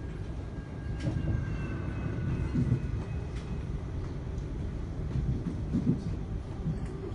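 Siemens Nexas electric suburban train running, heard from inside the carriage: a steady low rumble of wheels on track, with occasional clicks from the wheels over the rails. A faint high whine is heard for a couple of seconds about a second in.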